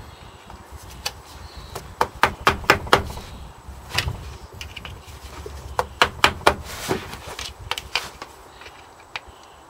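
Sharp metal clicks and knocks in irregular clusters as a screwdriver is levered and knocked against a worn crankshaft spigot bush to collapse it for removal.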